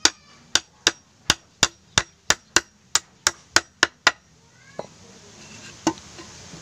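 Nails being hammered into a wooden board: about a dozen quick sharp strikes, roughly three a second, stopping about four seconds in as the nails go flush. Two lighter knocks follow.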